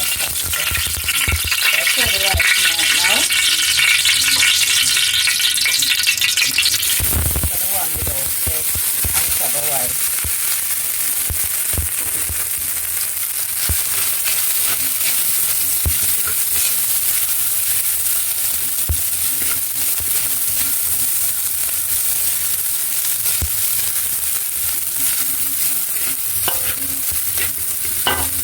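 Food sizzling in hot oil in a wok while being stirred. The sizzle is loudest for the first several seconds, then settles into a steadier frying hiss.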